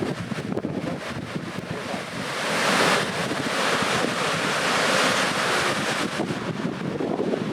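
Skógafoss waterfall rushing as a steady roar of falling water, growing louder a couple of seconds in and easing again near the end, with wind buffeting the microphone.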